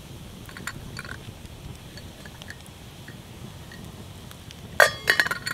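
Pot of cowboy coffee boiling over a campfire, a low steady rumble with a few faint crackles. Near the end comes a quick run of sharp metallic clinks from the pot's lid and bail being handled.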